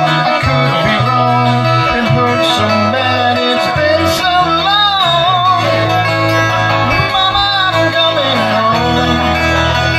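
Acoustic band playing live: strummed acoustic guitars over changing bass notes, with a wavering melody line about halfway through and again near the end.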